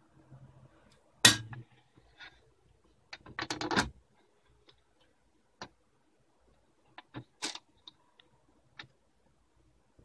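Clicks and rattles of a UNIS tbm de luxe portable typewriter's top cover being lifted and set back into place by hand. There is a sharp snap about a second in, a rattling clatter around three to four seconds, then a few scattered lighter clicks with one louder click past the middle.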